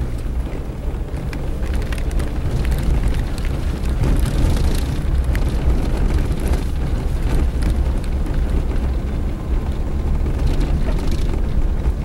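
Suzuki Jimny driving on a dirt road, heard from inside the cabin: a steady low engine and road drone, with short knocks and rattles from the bumpy surface, a cluster about four seconds in and another near the end.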